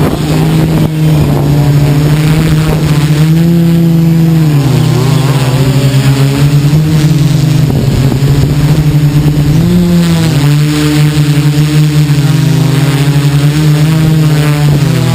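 Multirotor drone's Tiger MT4006 brushless motors and propellers, heard close up from the camera on board, hum steadily in several tones. The pitch dips and rises again a few times as the flight controller changes motor speed.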